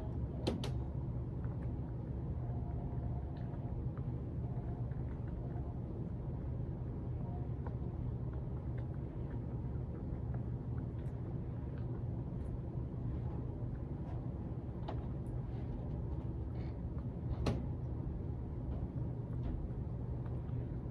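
A puppy gnawing on a marrowbone, with scattered short clicks of teeth on bone and two sharper knocks, one near the start and one near the end, over a steady low hum.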